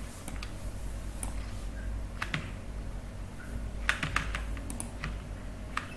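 Computer keyboard keys and mouse buttons clicking, a few scattered clicks with a quick cluster about four seconds in, over a low steady hum.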